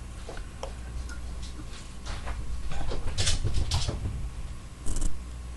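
Fingers scooping diced raw onion from a plastic tub and sprinkling it onto tostadas: a run of small scrapes, rustles and light patters, busiest in the middle, with a louder brief noise near the end.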